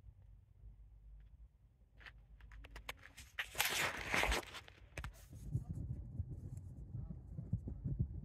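Faint crunching steps on gravel, loudest in a short cluster a little past the middle, with wind rumbling on the microphone in the second half.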